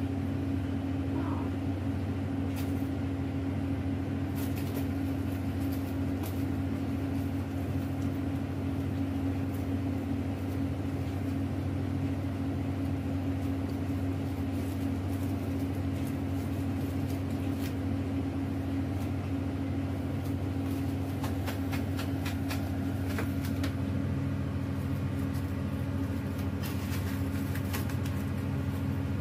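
A steady low mechanical hum at one constant pitch, with scattered faint clicks and ticks: a few in the first few seconds and bunches of them about two-thirds of the way through.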